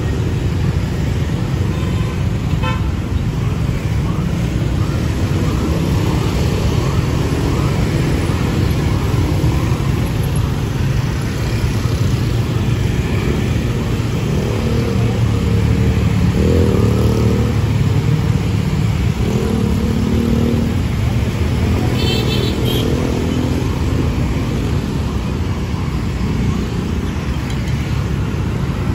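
Steady rumble of passing motorbike and car traffic on a city street. A short horn toot sounds a few seconds in, and another about three-quarters of the way through.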